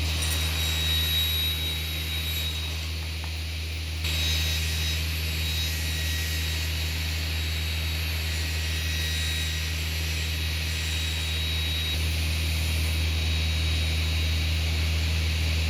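Woodshop power machinery running steadily: a low motor hum under a hiss and a faint high whine, stepping louder about four seconds in.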